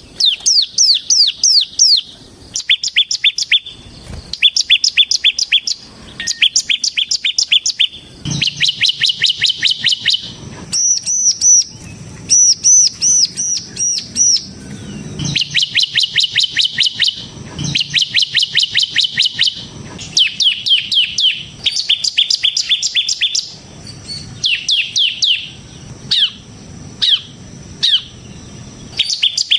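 Ciblek semi (bar-winged prinia) singing vigorously in the rapid drilling style keepers call 'ngebren'. Its song comes as fast bursts of high, downward-sweeping notes in phrases of a second or two with short gaps, and a run of higher, looping notes about a third of the way in.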